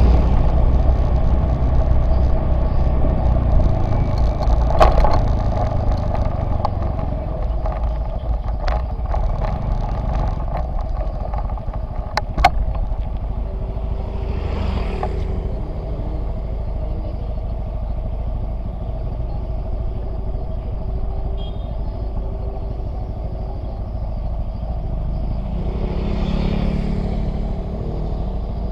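Motorcycle engine heard from a camera on the bike, running while riding and then settling to a steady idle as the bike stands still. A few sharp clicks come along the way.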